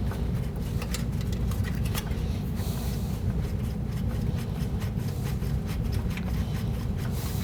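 Small clicks and scrapes of plastic and metal as a stubborn headlight wiring connector is worked loose, over a steady low rumble.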